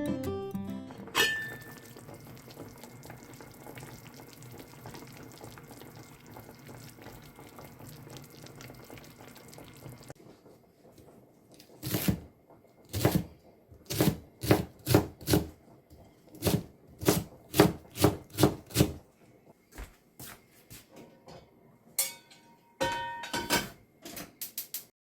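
Guitar music fades out, followed by a single thunk and several seconds of faint steady rushing. After that comes a run of sharp knocks of kitchenware, roughly one or two a second, with a few more near the end.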